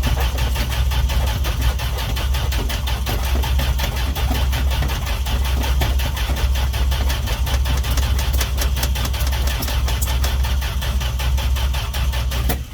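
Dodge D100 pickup's starter cranking the engine steadily for about twelve seconds without it catching, then stopping abruptly near the end. The engine won't fire after sitting for weeks; the owner bets there is moisture in the distributor.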